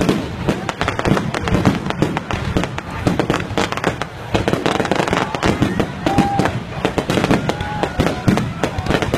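Aerial fireworks display: rapid, continuous cracking and banging of shells and comets bursting overhead, many reports a second with no pause.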